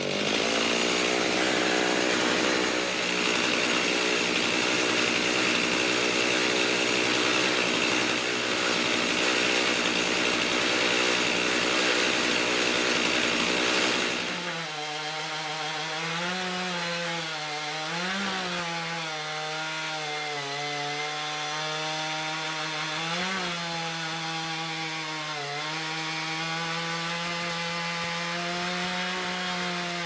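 A chainsaw in a Granberg Alaskan chainsaw mill runs at full throttle, ripping a mulberry log into slabs. About halfway through the sound changes abruptly to a quieter, clearer engine note. Its pitch dips and recovers several times as the chain bogs down in the cut.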